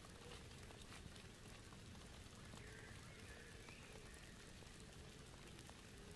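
Faint, steady patter of light rain in woodland, with scattered small ticks of individual drops.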